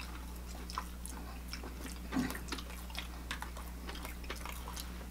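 Close-up wet chewing and mouth clicks of someone eating soft baba ghanoush, many small scattered clicks over a steady low hum.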